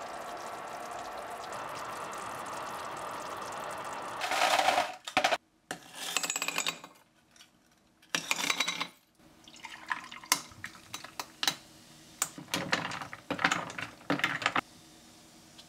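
A pan sizzling steadily for the first few seconds. Then ice cubes clatter into a glass in several loud scoops, and a dark fizzy drink, cola by its look, is poured over the ice, crackling and popping, with a spoon clinking against the glass.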